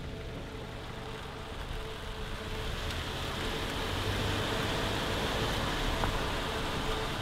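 Car driving along: a steady rush of tyre and road noise that builds over the first few seconds as the car gets under way.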